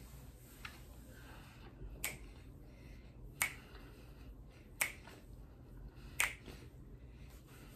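Crisp squeaky crunches of packed Argo cornstarch being bitten and chewed: five sharp cracks about a second and a half apart, the first fainter than the rest.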